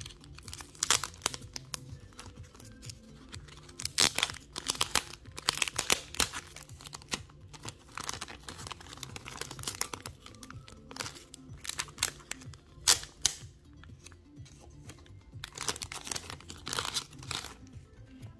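Clear plastic sleeve crinkling and crackling in irregular bursts as a Pokémon card is slid out of it and handled.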